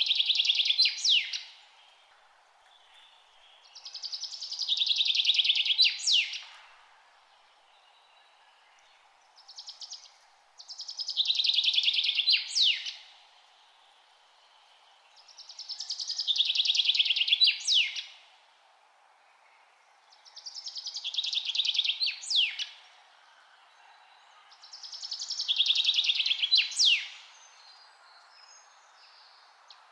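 A songbird repeating the same song about every five seconds, each song a dense trill that grows louder over about two seconds and ends in a few sharp high sliding notes, over a faint steady hiss of background noise.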